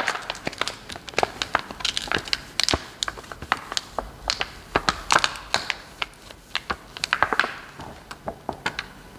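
PET-laminated carbon heating film crinkling and crackling as it is handled, flipped over and pressed flat.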